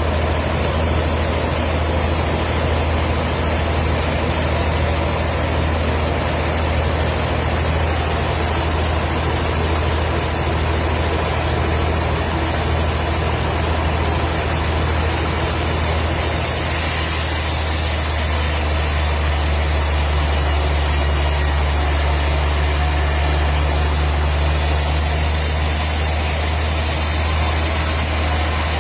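Engine of a wood processing machine running steadily with a deep, even hum; about halfway through, its sound changes, with a brighter, hissier upper part.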